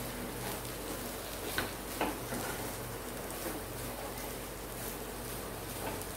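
Wooden spatula stirring cluster beans poriyal in a non-stick kadai: a steady low frying hiss with soft scraping, and a few light knocks of the spatula against the pan, the sharpest about one and a half and two seconds in.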